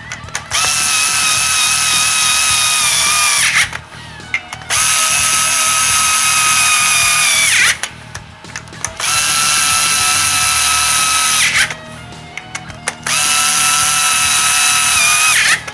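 Small cordless electric screwdriver running in four bursts of about three seconds each, a steady motor whine, driving the clutch spring bolts on the pressure plate snug. Its pitch sags a little toward the end of each run as the bolt tightens, with small clicks between runs.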